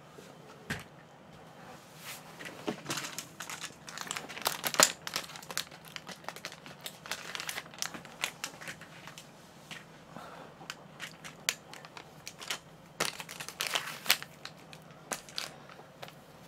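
Thin wrapping crinkled and torn open by hand, in irregular bursts of crackling, busiest about a quarter of the way in and again near the end.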